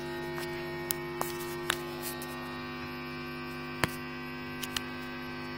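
Steady electrical hum from an electric guitar amplifier left on with nothing being played. A few faint clicks come over it, with a sharper one about four seconds in.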